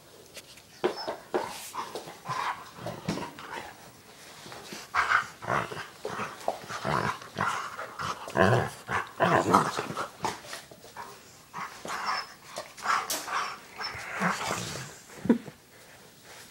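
Labradors, two adults and a young puppy, play-wrestling: play growls in short, irregular bursts, starting about a second in and dying down near the end.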